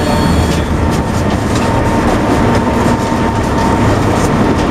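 Heavy diesel engine running with a steady, loud low rumble and some rattling.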